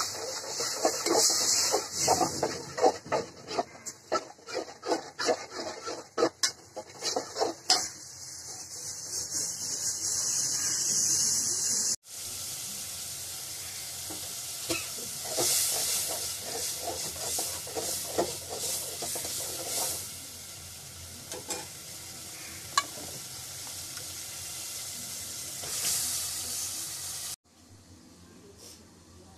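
Spice paste frying in oil in an aluminium pan: a metal utensil scrapes and stirs against the pan in quick strokes for the first several seconds over the sizzle, then steady sizzling with occasional pops, cut off abruptly near the end.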